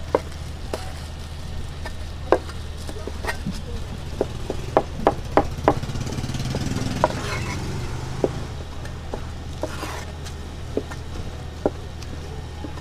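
A large cleaver chopping cooked offal (intestines and stomach) on a cutting board: irregular sharp knocks, with a quick run of about five chops about four to six seconds in. A steady low hum runs underneath.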